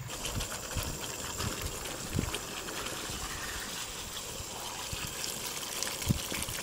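Thick chilli sambal with quail eggs bubbling and sizzling in a wok: a steady hiss full of small pops, with a few low thuds as a ladle stirs through it.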